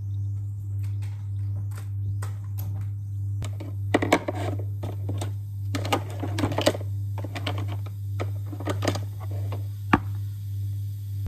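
Typing on a laptop keyboard: key clicks in irregular bursts, with one sharper click near the end, over a steady low hum.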